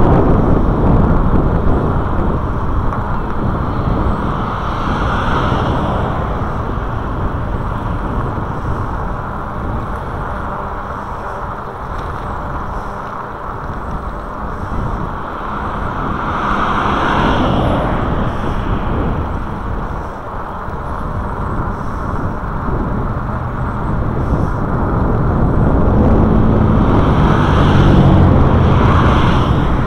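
Cars passing one at a time in the oncoming lane, three swells of tyre and engine noise about five seconds in, midway and near the end, over a steady rumble of wind on the microphone of a moving bicycle camera.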